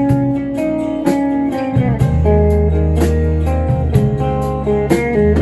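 Live rock band playing an instrumental passage between sung verses: guitar to the fore, with a deep bass line coming in about two seconds in and a steady beat.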